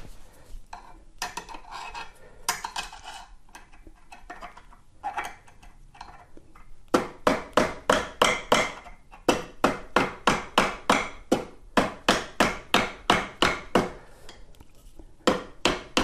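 Hammer tapping a metal punch to drive the pedal pin into an electric unicycle's pedal mount: a few scattered soft knocks and handling sounds, then from about seven seconds in a steady run of sharp metallic taps, about three a second, with another short run near the end.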